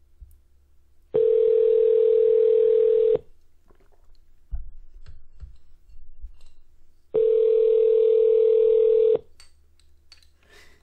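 Telephone ringback tone heard over the call line: two steady two-second beeps about six seconds apart, the number ringing and not yet answered.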